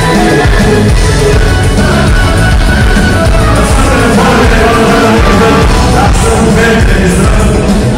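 Loud amplified music: a man singing into a handheld microphone over full musical accompaniment.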